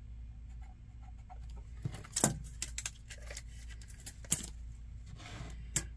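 Scattered sharp clicks and light taps of a steel tape measure being handled on and off a pine board, with a brief scrape about five seconds in; the loudest click comes about two seconds in. A faint steady low hum runs underneath.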